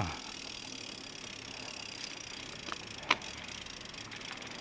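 Steady rolling noise of a mountain bike being ridden, with one sharp click about three seconds in.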